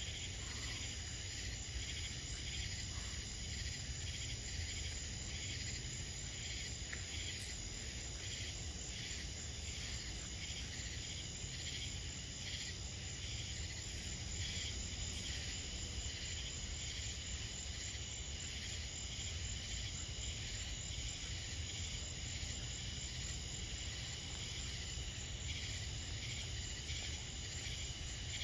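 A night insect chorus of crickets, a steady pulsing trill, over a steady low rumble.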